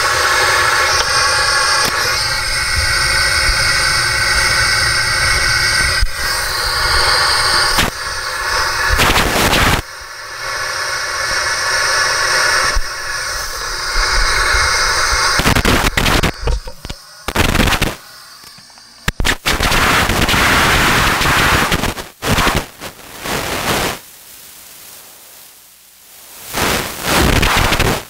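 Loud rushing hiss of air flowing through a pressurised spacesuit and its helmet, with knocks and rubbing as the suit moves. About halfway through the hiss starts coming and going in bursts with quieter gaps between.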